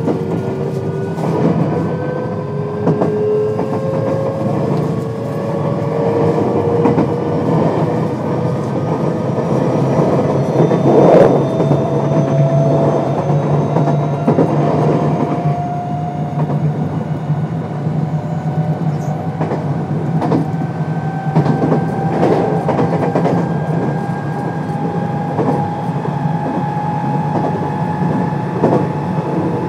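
JR West 521 series electric train with Toshiba IGBT-VVVF drive heard on board while running: the traction motor whine rises slowly in pitch as the train gains speed, over the rumble of the wheels. Rail-joint clicks sound throughout, with one louder clack about eleven seconds in.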